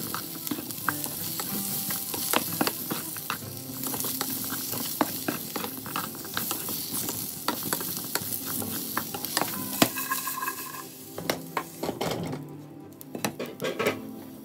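Bell pepper chunks sizzling in hot oil in a frying pan while a spatula stirs them, with frequent clicks and scrapes of the spatula against the pan; the sizzle thins out about twelve seconds in. Soft background music plays underneath.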